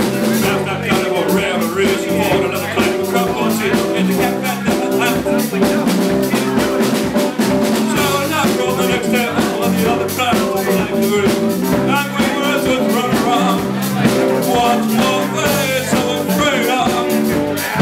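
Live band playing a number with a steady beat: drum kit, electric bass and a Nord Electro 2 keyboard, with a man singing over it.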